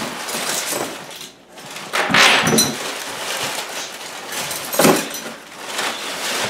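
Packing paper rustling and crinkling as hands dig through a cardboard box, broken twice by loud metallic clanks (about two seconds in and just before five seconds) as steel Bridger No. 2 foothold traps and their chains are handled and set down on a countertop.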